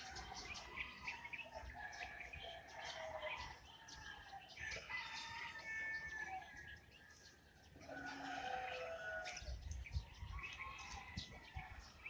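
Morning bird chorus: many small birds chirping and singing, with a rooster crowing a few times in longer falling calls. A brief low thump near the end.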